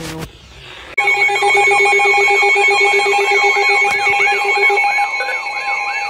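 Several weather alert radios sound their alarms at once, starting abruptly about a second in: steady beeping tones overlaid with a fast repeating rising chirp, about three chirps a second, signalling an incoming severe weather warning.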